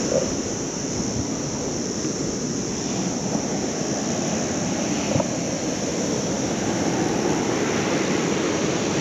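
Surf washing onto a beach, with wind on the microphone: a steady, even rush of noise.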